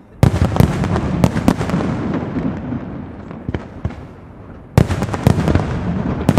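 Castillo fireworks display: a sudden salvo of shells bursting in sharp bangs over dense crackling, fading over about four seconds, then a second salvo breaks out near the end.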